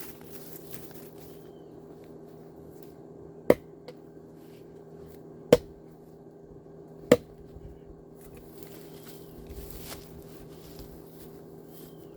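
Axe striking dry firewood three times, sharp single blows spaced about two seconds apart, used to knock and drag logs from a pile rather than split them. A steady low hum runs underneath.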